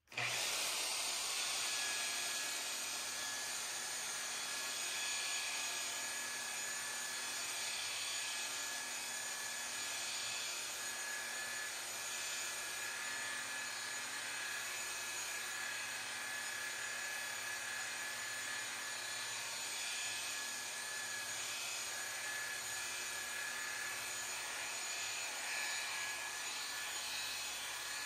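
Corded electric polisher with a foam pad running steadily at one speed, buffing a glaze into clear-coated paint, with a steady motor whine over the rush of the pad on the panel.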